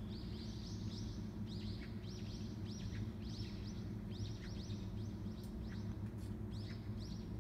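Small songbird chirping, quick high notes in short runs, one after another, over a steady low background rumble.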